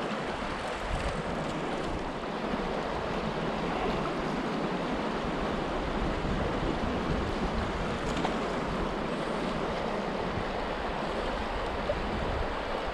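Steady rush of a fast, shallow river running over rocks around a wading angler, with wind buffeting the microphone in a low rumble.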